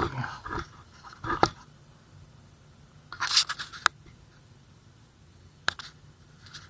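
Handling noise: a few scattered scrapes and sharp clicks or knocks, with quiet gaps between them.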